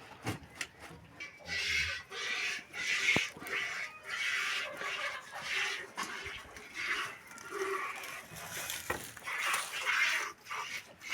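A goat being milked by hand: milk squirting into a container in short hissing spurts, about one or two a second.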